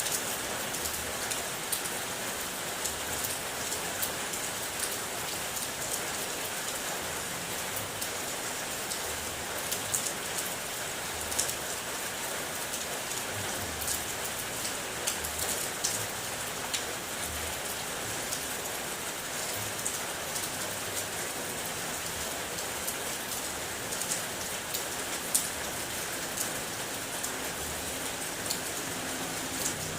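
Steady rain falling, an even hiss with many single drops tapping sharply on a hard surface.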